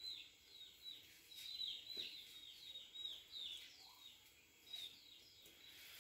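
Small bird chirping faintly and repeatedly, a few short chirps a second, each dropping in pitch.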